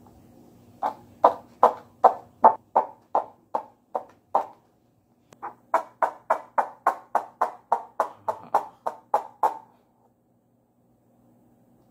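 Homemade chicken-sound cup: a plastic cup with a yarn string through its bottom, the string pulled in short jerks with a wet paper towel so the cup squawks like a clucking chicken. Two runs of sharp clucks, about two or three a second, with a short break near the middle, stopping shortly before the end.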